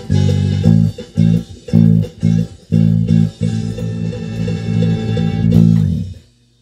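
Electric bass guitar played fingerstyle: a run of short, separated plucked notes, then longer held notes, stopping just before the end.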